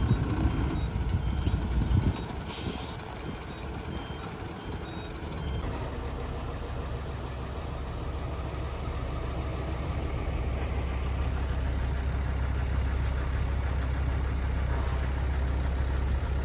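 Heavy diesel truck engine running, with a reversing beeper sounding for the first few seconds and a short air-brake hiss about two and a half seconds in; the engine then settles into a steady low drone.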